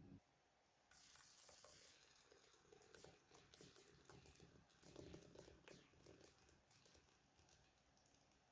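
Faint pattering and small splashes of thick boiled condensed milk pouring in a stream into a stainless steel bowl, starting about a second in and dying away toward the end.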